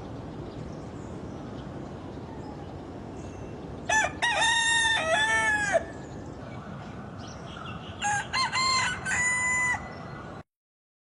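Rooster crowing twice: a loud crow of nearly two seconds about four seconds in, then a slightly quieter crow about four seconds later, over a steady background hiss. The sound cuts off abruptly near the end.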